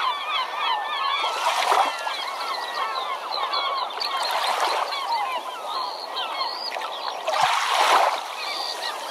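Many birds calling at once, a dense chatter of overlapping short chirps and squawks, swelling louder twice.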